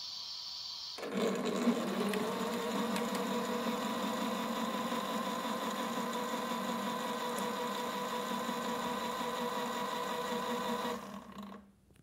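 Toy washing machine's small electric motor starting up about a second in, pitch rising briefly, then whirring steadily as it turns the water-filled drum, and stopping near the end.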